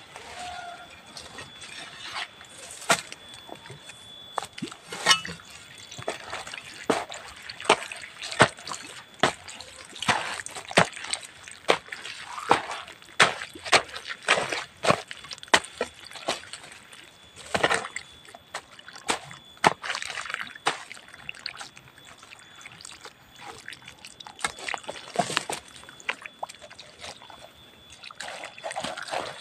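A hoe repeatedly chopping into and turning wet soil mixed with kitchen ash, giving irregular wet strikes and squelches about one or two a second.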